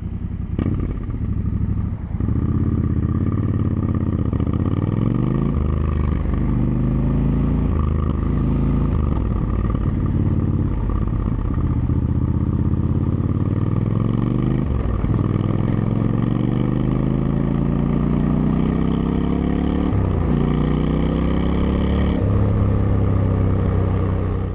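Triumph Scrambler 1200 XC's two-cylinder engine through an Arrow exhaust, accelerating hard through the gears: the engine note climbs and drops sharply at each of several upshifts, then holds steady near the end before cutting off suddenly.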